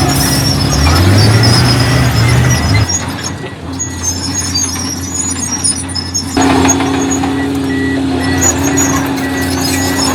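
Diesel engines of heavy earthmoving machinery running. One engine's pitch rises about a second in and drops away near three seconds; a steadier hum carries on and grows louder about six seconds in.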